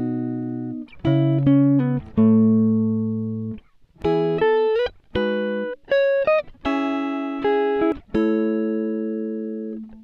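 Background music of a plucked guitar: chords struck one after another, each ringing out and fading, with short runs of notes that slide up in between.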